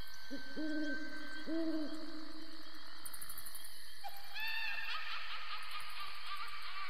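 Two low owl hoots about a second apart, a spooky-style sound effect. From about four seconds in they give way to a run of higher-pitched, wavering calls.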